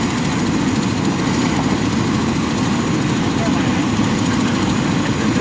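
Helicopter running on the pad, a loud steady rotor and engine noise that does not change.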